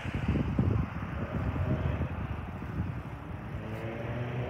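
Road traffic on a multi-lane highway: vehicles passing, a continuous rush of tyre and engine noise.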